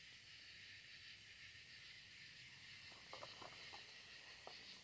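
Near silence: a faint steady hiss of the night air, with a few soft clicks or rustles about three seconds in and once more near the end.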